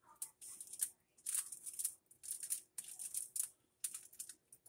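Knife spreading cream cheese over a halved French loaf: a run of short, irregular scraping strokes.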